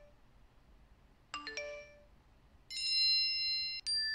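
Subscribe-button animation sound effects: a short cluster of three quick plinking chime notes, then a louder, held bright ding about halfway through, followed by a brief second ding near the end as the notification bell icon appears.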